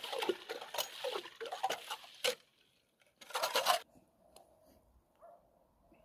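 Hand ice auger boring through lake ice: a dense scraping crunch of the blades cutting ice, stopping abruptly a little over two seconds in. A second short burst of similar crunching noise follows about a second later, then only faint small sounds.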